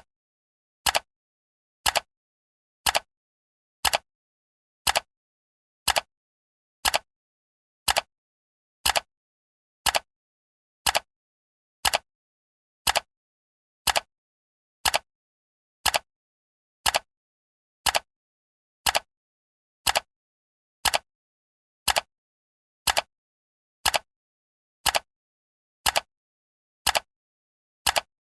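Countdown timer ticking sound, one short, sharp tick each second with silence between.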